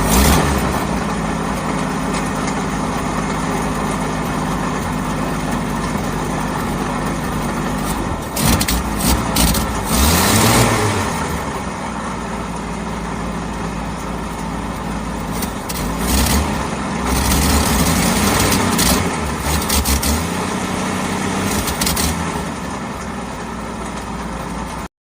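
1941 Ford Deluxe engine idling steadily just after starting. It is revved up and back down twice, and the sound cuts off abruptly near the end.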